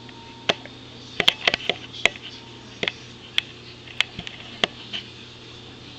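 Light, sharp clicks and taps at irregular intervals, roughly one or two a second, over a steady low hum.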